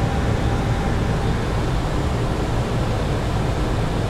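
Steady flight-deck noise of a Boeing 737NG in flight on final approach in landing configuration: a constant low rumble of air rushing past the airframe, with a hiss over it.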